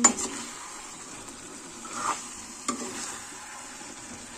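Chicken in masala sizzling in a steel kadhai while a steel spoon stirs and scrapes through it. There is a sharp clink of spoon on pan at the start and another about two and a half seconds in.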